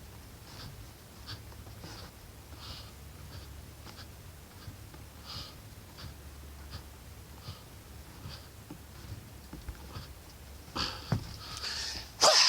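Faint, short scuffing sounds repeating about every two-thirds of a second over a low steady hum, then a few loud, hard breaths near the end from a person exercising.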